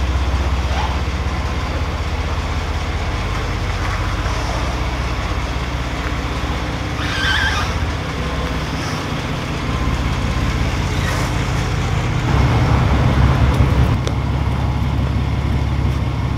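Chevy Silverado 1500 pickup engine running at low speed as the truck drives slowly forward. A steady low drone that grows louder for a couple of seconds about twelve seconds in.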